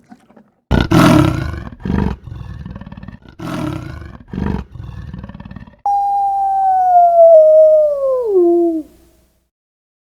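A large animal roaring: one long loud roar and a few shorter ones. After that comes a long, steady, high-pitched call that drops in pitch near its end and stops.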